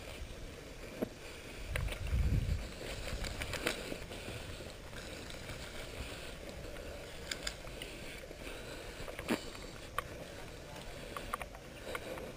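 Steady rustle of wind and movement noise on a body-worn camera's microphone, with a low rumble about two seconds in and a few scattered sharp clicks.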